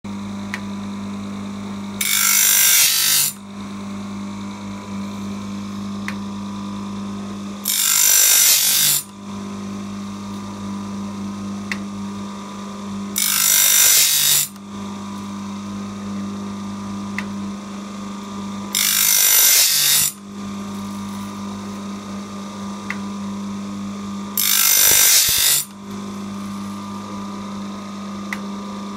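Band-saw blade sharpener running: its motor hums steadily, and the abrasive grinding wheel grinds a tooth in loud bursts about a second long, five times at an even pace of one roughly every five and a half seconds.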